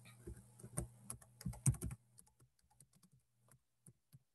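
Typing on a computer keyboard: a quick run of keystrokes, louder and denser over the first two seconds, then lighter and more spaced out.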